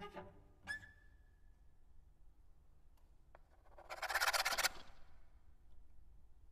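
Sparse contemporary percussion: two light struck sounds, the second ringing on as a high tone for about a second. About four seconds in comes a loud rasping scrape lasting under a second.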